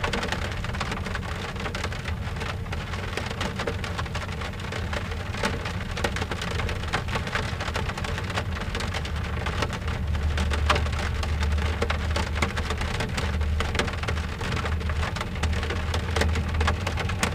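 Rain falling on a car window: a dense, steady stream of drop ticks on the glass. A low rumble runs underneath and grows stronger about ten seconds in.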